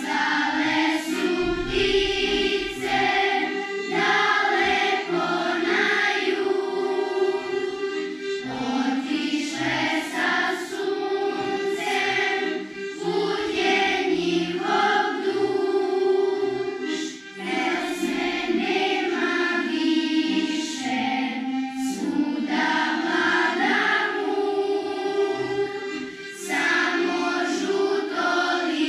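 Children's choir singing a song together, accompanied by an accordion, in phrases with short breaks between them.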